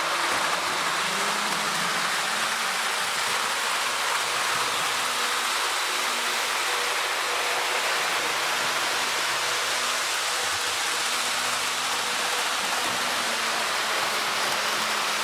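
Accurascale OO-gauge Class 55 Deltic model locomotive and its coaches running at full speed: a steady rushing of wheels on the rails with a faint motor hum. The sound is even and constant, with no juddering or surging, the sign of a decoder with its back-EMF settings tuned.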